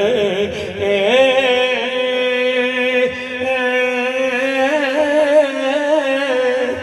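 A man singing a naat into a microphone, drawing out a long held note with wavering melismatic turns near the start and again about five seconds in.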